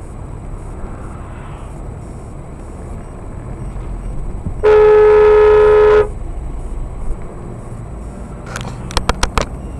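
Car horn sounded in one long steady blast of about a second and a half, over the steady road and engine noise inside a moving car, a warning to a camper van cutting into the lane ahead. A quick run of four or five sharp clicks follows near the end.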